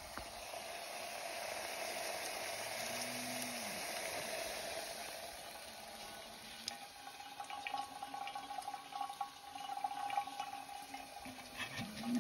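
Cryogenic liquid boiling off and hissing, then poured from a frosted plastic bottle into a stainless steel vacuum flask: a steady hiss first, then crackling and splashing from about halfway on as it fills.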